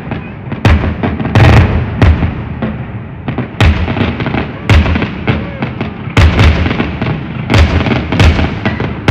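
Fireworks going off in a rapid, irregular series of sharp bangs and deep booms, about one or two a second.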